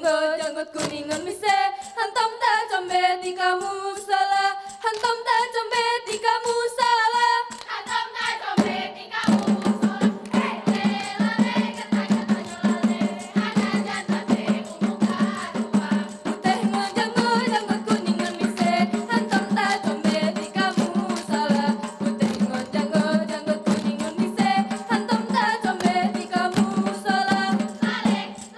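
A group of girls singing an Acehnese Ratoh Jaroe song in unison, with rapid rhythmic hand claps and body slaps from the seated dancers. About nine seconds in, a steady low hum enters beneath the voices and the claps turn dense and fast.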